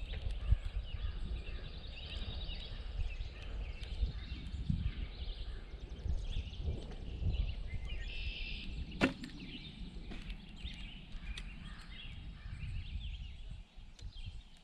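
Birds chirping over a low rumble of wind on the microphone, with a single sharp snap of a bow being shot about nine seconds in.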